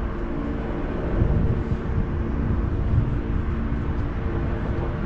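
Cruise ship under way: a steady machinery hum over an uneven low rumble that swells a little about a second in and again around three seconds, typical of wind on the microphone.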